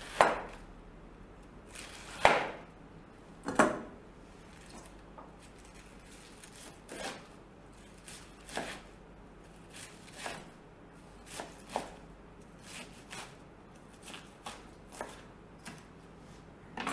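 Kitchen knife shredding cabbage on a cutting board, the blade cutting through the head and knocking on the board. Three hard knocks in the first four seconds, then lighter cuts about one a second.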